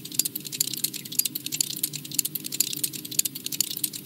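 Many quartz Swatch watches ticking at once: a dense, irregular clatter of sharp clicks over a low steady hum. This ticking noise is what the makers admit is the Swatch's one real defect.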